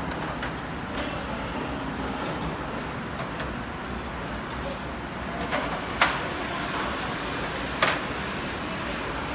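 Sharp clinks of plates, trays and serving utensils against a stainless-steel serving counter, the loudest about six seconds in and another near eight seconds, over a steady low background rumble.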